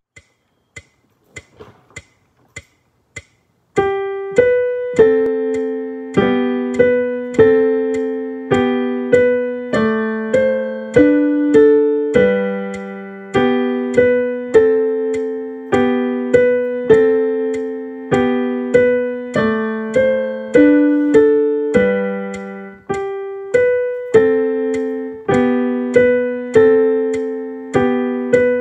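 A few faint clicks, then about four seconds in a digital piano starts playing: a simple piece in the middle register, notes and chords struck at a steady, even pace, each one ringing and fading before the next.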